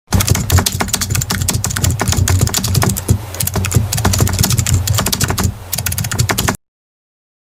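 Rapid typing on a keyboard, a fast, dense run of key clicks that cuts off suddenly near the end.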